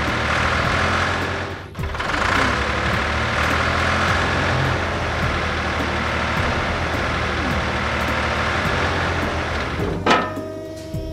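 Sound effect of a heavy truck engine running steadily, with a brief drop about two seconds in. It cuts off with a short sharp burst about ten seconds in.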